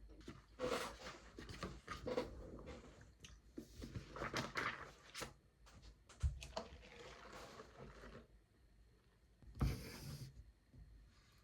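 Handling noises: irregular rustling and light clicks and knocks of objects being moved, with a sharp thump about six seconds in and a brief noisy bump near ten seconds.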